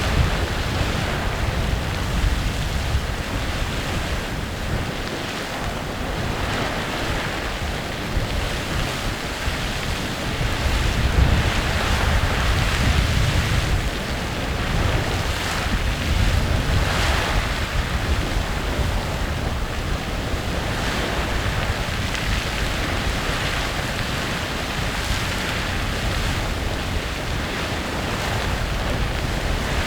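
Clepsydra Geyser erupting: a steady rushing hiss of splashing water and steam, swelling and easing every few seconds, with a deep rumble underneath.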